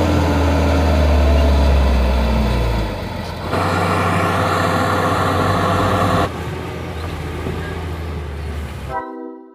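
Hino 500 FM260JD dump truck's six-cylinder diesel engine running with a deep low rumble. After about three seconds it changes to a noisier, higher-sounding run while the raised bed tips out coal. A short music intro begins near the end.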